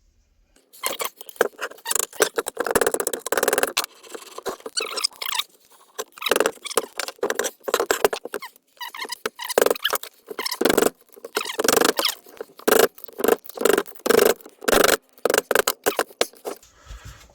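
Repeated, irregular squeaking and scraping strokes as a part is worked off the pinion end of a car differential by hand.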